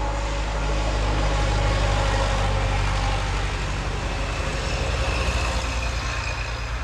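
Motor vehicle engine running steadily and close, a loud low hum that holds one pitch throughout.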